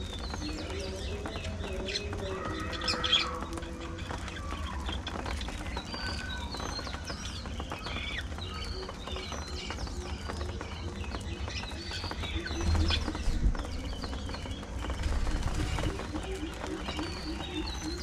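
A flock of budgerigars chattering with many short chirps and warbles while they feed on seed, with louder bursts about 3 seconds in and again around 13 seconds.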